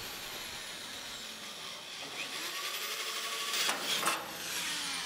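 Cordless drill running. Its motor whine climbs to full speed about two seconds in, the bit grinds loudly into a panel, and the whine falls away near the end.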